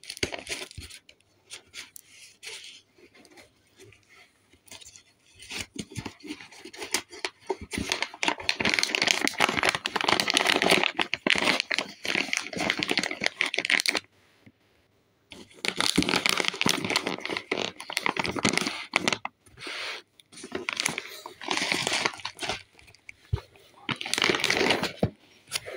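A cardboard shipping box and plastic-film sachets are being handled and pulled apart: irregular bursts of tearing, rustling and crinkling, with a short pause about fourteen seconds in.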